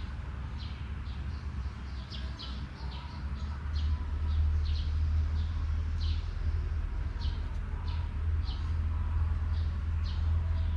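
Small birds chirping, short high chirps a few times a second, over a steady low hum that grows louder about four seconds in.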